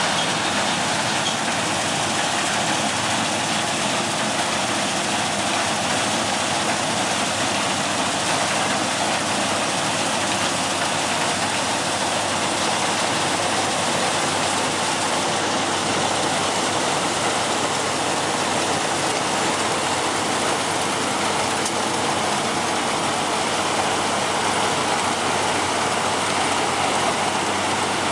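NS-920 4x4 combine harvester running while it cuts and threshes a standing crop: an even mechanical noise that holds steady throughout.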